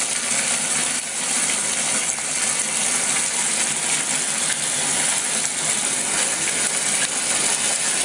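Kitchen mixer tap running steadily, its stream splashing into a plastic washing-up bowl as it fills. The hot tap is drawn through a combi boiler, and the water is still coming through cold while the boiler warms up.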